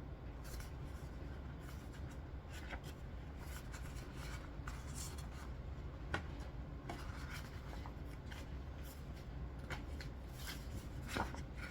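Faint rustling and rubbing of a trade paperback comic being handled, its cover and paper sliding under the hands in short scattered scrapes.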